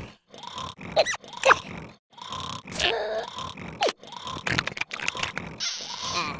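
A cartoon creature's grunts and groans mixed with crunching, chewing sound effects, in a string of short bursts with brief silent gaps and a couple of quick squeaky pitch slides.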